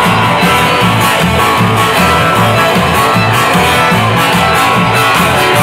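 Live band playing loud, up-tempo music: strummed guitar over a steady, pulsing bass line with drums.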